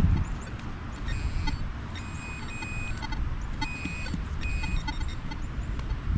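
Metal detector sounding over a buried target: about six short, high beeps at one pitch, some in quick pairs, over low rumbling handling and wind noise.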